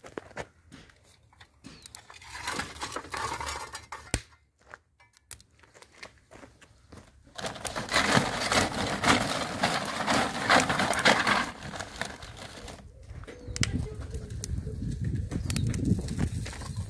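Plastic sack rustling loudly for about four seconds as hands rummage in it, amid scattered clicks and knocks of handling.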